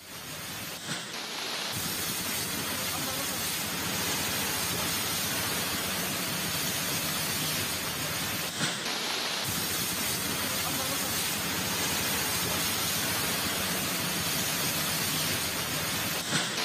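Fast muddy floodwater and landslide debris rushing down a hillside as a steady, even rush of noise. It is broken by brief dips about a second in, halfway through and near the end.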